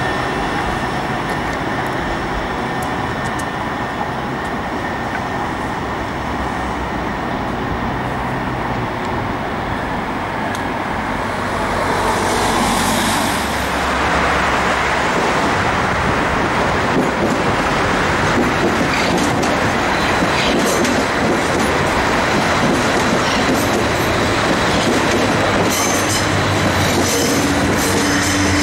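An AnsaldoBreda Sirio tram running along street track, with a steady high tone under the rolling noise. About halfway through the sound changes to road traffic and an Athens Metro Line 1 electric train rolling through a cutting, with clicks and a high squeal from its wheels near the end.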